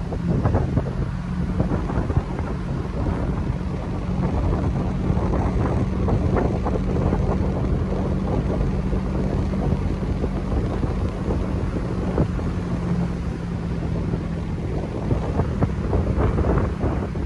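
Car driving at low speed: a steady low engine and road hum, with wind gusting over the microphone.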